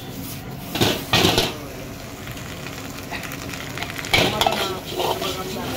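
Steel ladle scraping and clanking against an iron wok as fried rice is stirred and tossed over a gas flame, with a steady frying sizzle between the strokes. The loudest scrapes come about a second in and again around four to five seconds in.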